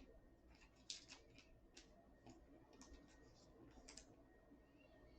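Near silence with faint, irregular clicks and slides of trading cards being handled and flipped one after another.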